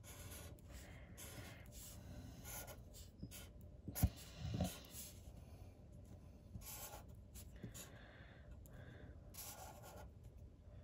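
Faint, irregular strokes of a red Sharpie felt-tip marker drawn across a lottery scratch ticket as words are crossed off, with one sharp tap about four seconds in.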